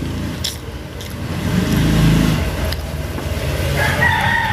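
A vehicle passing by, its low rumble swelling to a peak about two seconds in and then fading. Near the end a rooster starts crowing.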